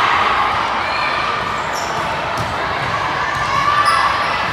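Sound of a volleyball match in a gym: a crowd of voices echoing in the hall, with a few short high squeaks. The voices swell slightly near the end.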